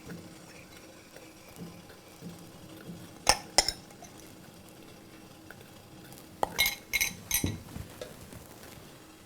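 Metal utensils clinking against a metal vessel as batter is spooned in for the second layer. There are two sharp clinks about three seconds in, then a quick run of ringing clinks a little past halfway.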